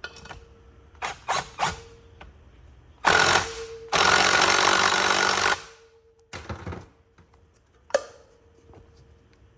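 Power driver run in two bursts, a short one and then a longer one of about a second and a half, driving the nut down the valve spring compressor's stud to compress a dual valve spring. Tool clicks come before the bursts, and a sharp metallic knock comes near the end.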